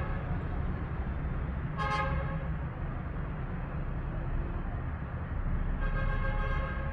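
Two horn honks, a short one about two seconds in and a longer one near the end, over a steady low rumble.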